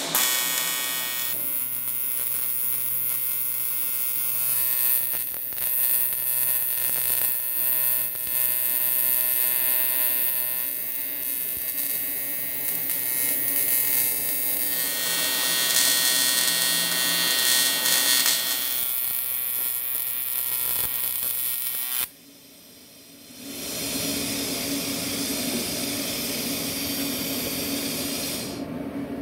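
AC TIG welding arc on an aluminum boat hull, buzzing steadily with a hiss over it. It breaks off for about a second and a half after some twenty seconds, then starts again.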